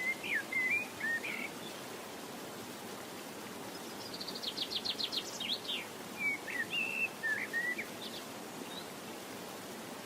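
A songbird singing: short whistled phrases, then a rapid trill about four seconds in, followed by more whistled notes, over a steady hiss.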